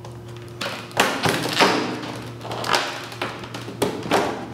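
A clear rigid plastic knife case being handled and opened by hand: a series of sharp plastic clicks and taps with crackling between them.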